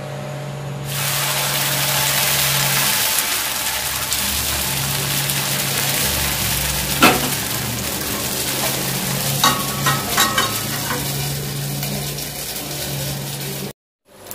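Dosa batter sizzling steadily in hot oil in a deep kadhai; the sizzle starts suddenly about a second in, as the batter goes into the oil. A single knock comes about halfway and a few light clinks a couple of seconds later, over a steady low hum.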